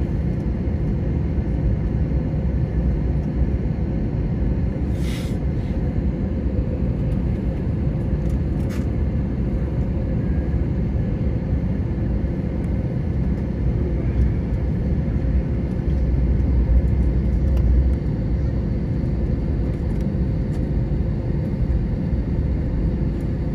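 Cabin noise of an airliner taxiing after landing: a steady low rumble from the engines and the rolling wheels, with a faint steady hum. The rumble swells briefly about sixteen seconds in, and there is a short hiss about five seconds in.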